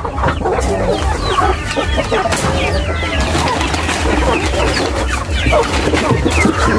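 Chickens clucking, many short quick calls overlapping, with knocks and rustles from a hen being carried and a sack being handled.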